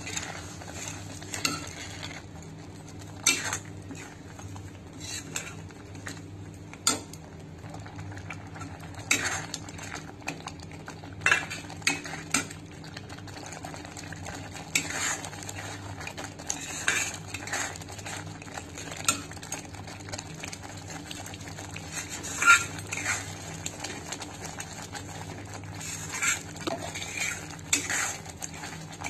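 Steel spoon scraping and clinking against the iron kadai in irregular strokes while stirring a thickening milk-cake mixture of milk, mawa and sugar.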